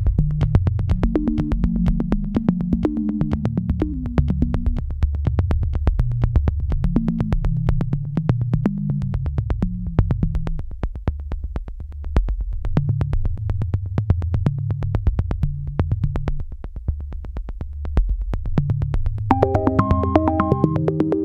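Background electronic music with a steady beat and a synthesizer bass line; higher keyboard notes come in near the end.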